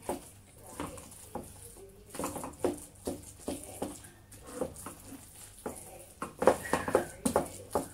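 Wooden spoon mashing boiled potatoes and green peas in a stainless steel pot: irregular soft squelches and knocks of the spoon against the pot, a few a second, heavier for a moment near the end.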